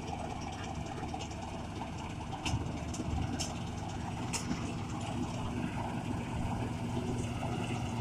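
Vishal 435 self-propelled combine harvester running steadily while cutting standing wheat, a continuous engine and machinery drone, with a few brief sharp ticks in the middle. It grows slightly louder toward the end as the machine comes closer.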